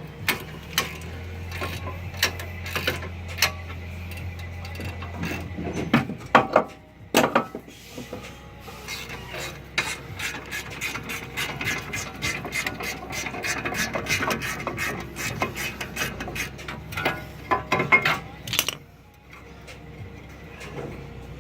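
Hand ratchet wrench clicking in long rapid runs as the brake caliper bracket's bottom bolt is wound out, with a few louder metallic knocks about six to seven seconds in.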